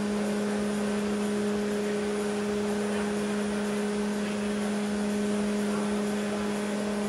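Steady hum of large electric fans making wind for model sailboats, with a constant low tone and a tone an octave above it over an even whirring hiss.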